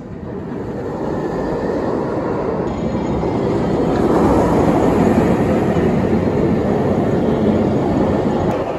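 Empty test train on Dominator, a Bolliger & Mabillard floorless steel roller coaster, running through the track with a loud, even roar. The roar swells over the first few seconds, is loudest about halfway through as the train passes close by, and eases near the end.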